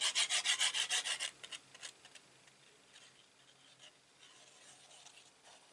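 Rapid rhythmic scrubbing of liquid glue being rubbed across cardstock, about six strokes a second, stopping about a second in; faint paper rustles and light taps follow.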